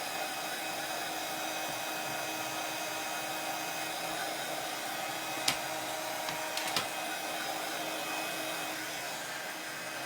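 A handheld hot-air dryer running steadily at an even pitch, with a couple of light clicks about halfway through.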